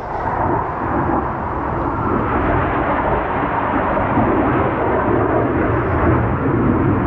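A strong gust of wind, a loud, steady rush that builds over the first second and holds.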